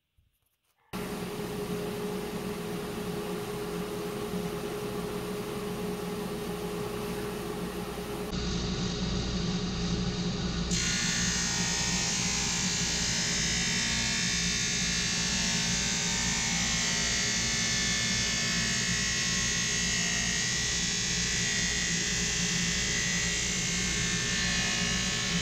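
Grizzly G0458Z 18/36 drum sander running on its first test run, a wooden board feeding through under the sanding drum. The steady machine noise starts suddenly about a second in, then grows louder twice, about eight and eleven seconds in, the second time with a much stronger hiss.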